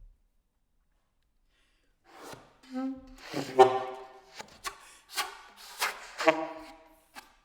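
Solo saxophone in short, broken bursts after about two seconds of silence: breathy air noise, clipped pitched honks and sharp high squeals.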